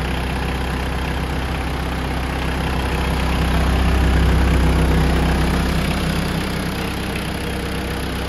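Mitsubishi GX510 tractor's 2.5-litre diesel engine idling steadily with its alternator charging. The sound grows a little louder for a couple of seconds midway, then settles back.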